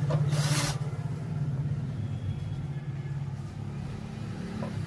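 Cordless drill-driver briefly running a screw into the amplifier's metal cover, a short burst a little after the start, over a steady low hum.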